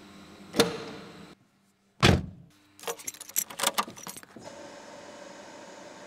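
A Subaru Impreza GC8's door: a click at the handle, then the door shutting with a loud thump about two seconds in. A second or so of jangling keys and small clicks follows, then a steady low hum.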